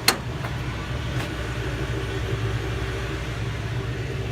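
Ford F-550's V10 gas engine idling steadily. A single sharp clack sounds just after the start.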